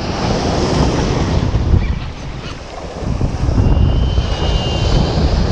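Wind buffeting the microphone over surf breaking on rocks, a loud steady rumble and wash that dips briefly in the middle. A faint thin high whistle sounds for about a second near the end.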